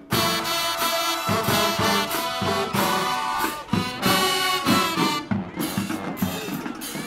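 High school marching band playing: the brass comes in suddenly and loud with full sustained chords over a steady drumline beat. Near the end the brass drops back and the drums carry on.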